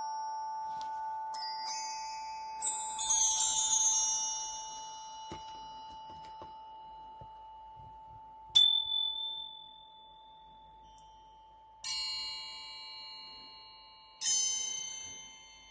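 Meditation music: a sustained tone slowly fading under high struck chimes that ring and die away, several in quick succession near the start, then single strikes about every three seconds.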